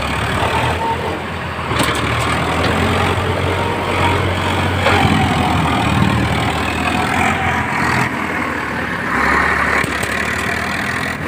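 Diesel tractor engine running hard under heavy load while pulling on steel tow cables, its rear tyres spinning and churning loose dirt.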